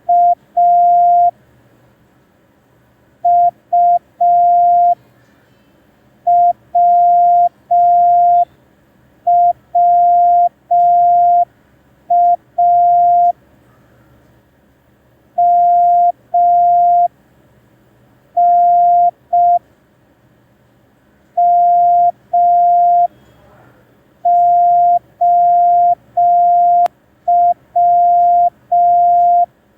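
Morse code practice tone: a single steady beep keyed on and off in dots and dashes. It sends one short character about every three seconds for copying practice.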